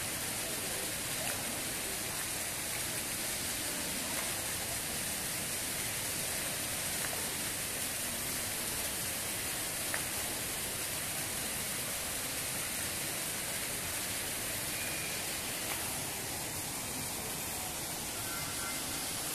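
Water jets of an indoor fountain splashing steadily into its pool.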